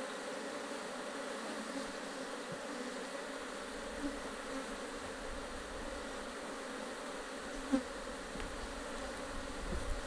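Honey bees of an opened hive colony humming steadily, a continuous drone at an even pitch. One light tap a little under eight seconds in.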